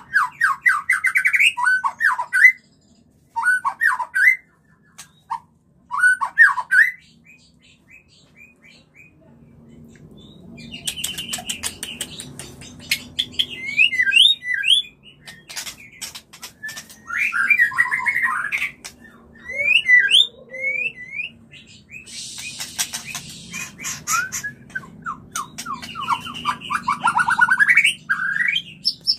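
White-rumped shamas giving mating calls: bursts of fast, rising chattering notes and rapid clicks, with a quieter spell in the first third.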